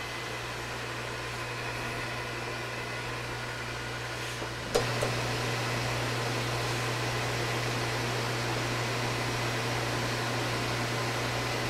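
Metal lathe running steadily with a low hum while a turning tool takes a closing cut along a 304 stainless steel bar. About five seconds in there is a click, and the running sound then holds slightly louder.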